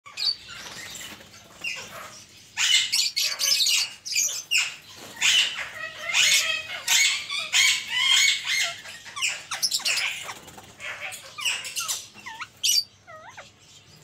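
Indian ringneck parakeets squawking in rapid, harsh screeches, an angry, agitated exchange. Near the end the calls give way to softer rising-and-falling chirps.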